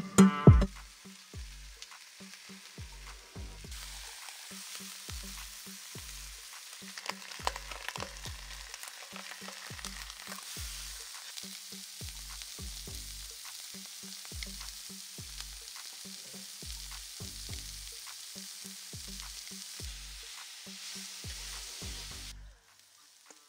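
Pork belly with the skin on sizzling as it fries on a cast iron cauldron-lid griddle, with a few sharp pops. The sizzle grows louder about four seconds in and stops shortly before the end.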